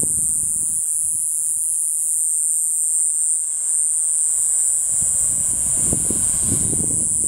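Jet airliner engines idling as an ANA Boeing 737 taxis, heard as a steady high whine. Wind buffets the microphone at the start and again in the second half.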